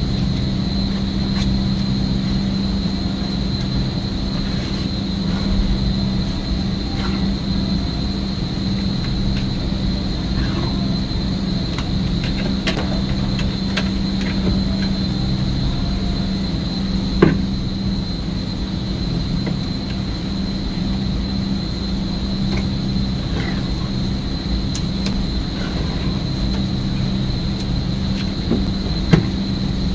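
Steady machinery hum with a faint high whine, broken by a few light knocks and scrapes as slimy muck is scooped by hand from a plugged refrigerated-case drain pan into a plastic bucket; the sharpest knock comes about halfway through, another near the end.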